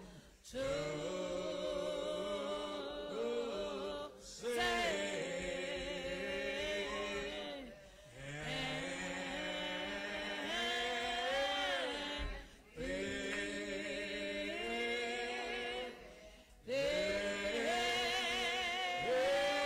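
Church congregation singing a slow hymn unaccompanied, drawing each syllable out with wavering, ornamented turns. The long phrases are broken by short breaths about every four seconds.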